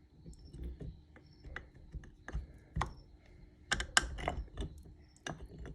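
Brake pads and small metal caliper parts being handled, giving irregular light clicks and clacks, with a quick cluster of sharper clacks about four seconds in.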